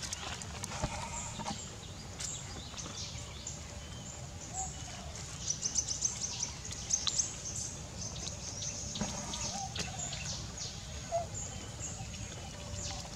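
Outdoor ambience: a low steady rumble with scattered crackles of dry leaves and short high chirps, busiest about five to seven seconds in.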